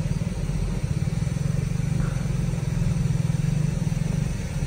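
Car being driven, its engine and tyres making a steady low rumble heard from inside the cabin.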